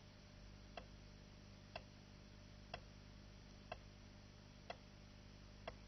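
Faint timer ticks, evenly spaced about once a second, over a low steady hum.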